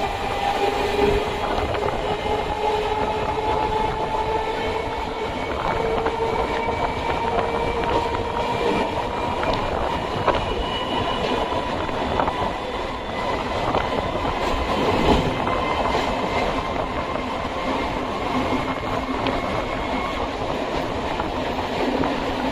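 Electric suburban train running along the track with a steady rumble and clatter of the wheels. A whine rises in pitch over the first several seconds as it gathers speed, with occasional sharp clicks.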